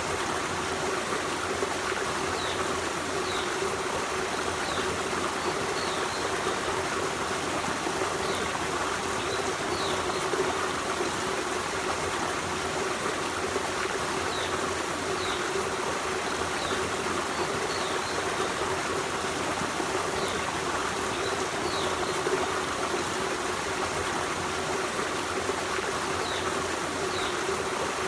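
Forest stream flowing in a steady, unbroken rush of running water. Faint, short high chirps come every few seconds.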